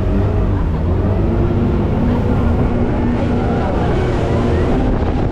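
Motorboat engine running steadily with a deep rumble, water and wind rushing past, with faint voices under it.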